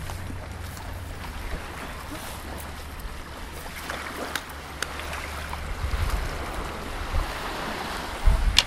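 Wind buffeting the microphone, a steady low rumble that swells in gusts, over an even outdoor wash of sea and wind, with a low thump near the end.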